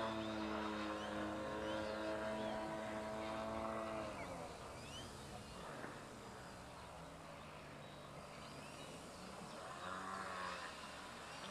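Radio-controlled model airplane's propeller motor running overhead: a steady buzzing note that drops sharply in pitch and loudness about four seconds in, then runs on fainter and lower, swelling slightly near the end as the plane comes back around.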